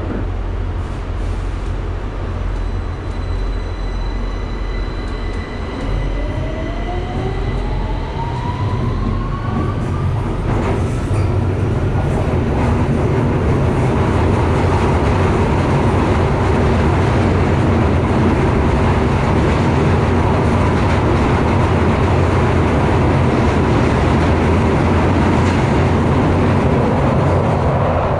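Victoria line Underground train heard from inside the carriage, picking up speed: the traction motor whine rises in pitch over several seconds. The train then runs on at speed with a louder, steady rumble and roar.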